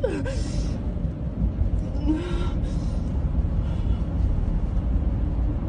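Car driving through a road tunnel, a steady low rumble of tyre and engine noise heard from inside the cabin.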